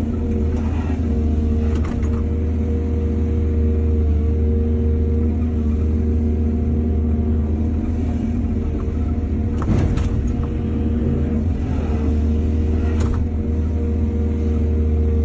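Excavator's diesel engine running steadily with a deep hum, broken by a few sharp metallic clanks, the loudest about ten seconds in.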